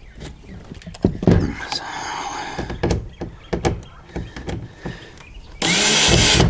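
Hand work on a plastic kayak hatch ring and screw: scattered knocks, taps and scraping of plastic. A loud burst of noise lasting just under a second comes near the end.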